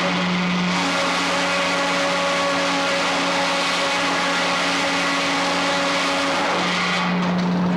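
Frick 00 sawmill's circular blade cutting through a log over a steady machine hum, the cut stopping about seven seconds in.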